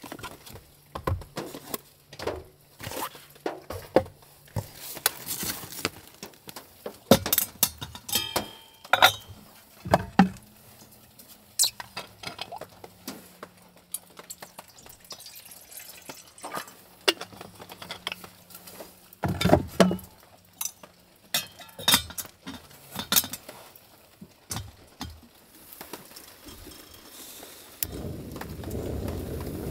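Metal camp cookware and gear clinking and clattering as it is handled. Near the end a small canister gas stove lights and burns with a steady rush under a pot.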